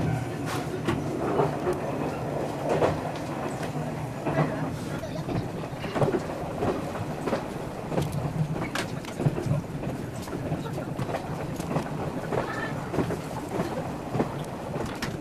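Passenger train running along the track, heard from inside the carriage: a steady low rumble with scattered sharp clicks and knocks from the wheels and rails.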